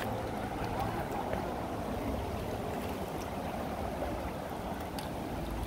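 Kern River water rushing over rapids: a steady rush.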